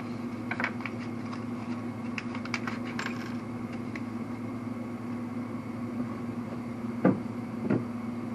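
Light clicks and taps of small parts being handled, over a steady background hum. Two louder knocks come about seven seconds in.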